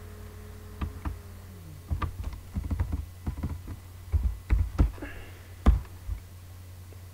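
Typing on a computer keyboard: irregular key clicks in short clusters, over a steady low hum.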